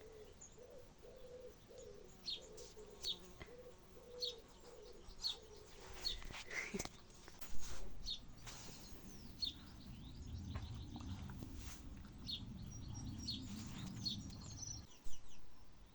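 Small birds chirping outdoors, short high chirps about once a second, with a wavering cooing tone over the first few seconds. A low rumbling noise rises from about ten seconds in and stops near the end.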